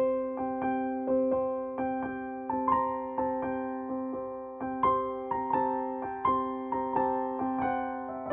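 Background music: a soft electric-piano melody, one note roughly every two-thirds of a second, over steady held tones.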